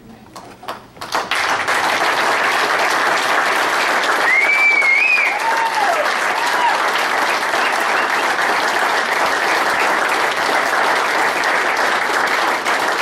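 A crowd applauding. A few scattered claps at first build into steady, dense applause about a second in, with a few short cheers in the middle.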